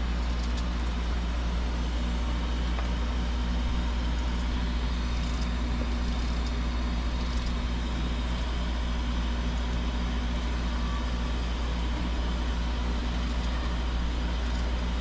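Steady low mechanical hum with an even background hiss, unchanging throughout, and a few faint light clicks.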